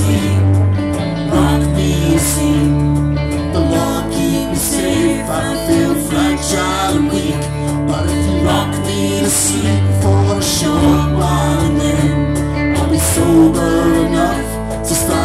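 Live rock band playing with amplified guitars, bass guitar and drums: steady bass notes under strummed guitar and regular cymbal hits.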